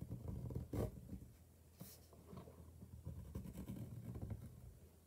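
Fine-tip black marker drawing on sketchbook paper: faint scratching, with low rubbing and bumping from the hand and pad. Two short, sharper sounds stand out, the louder about a second in and another near two seconds.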